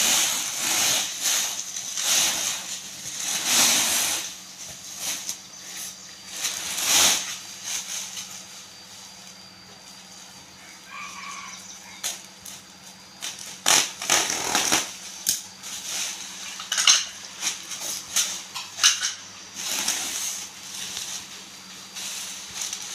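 Bubble wrap crinkling and rustling in irregular crackles as sheets are pulled out, wrapped around a package and cut with scissors.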